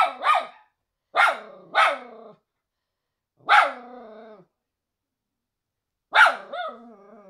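Miniature schnauzer barking: about five short barks, some in pairs, the later ones trailing off into a drawn-out whine.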